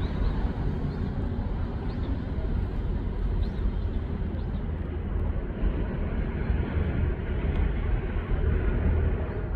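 Steady outdoor ambience: a constant low rumble under an even rushing noise, with a few faint short high chirps about two, three and a half and four and a half seconds in.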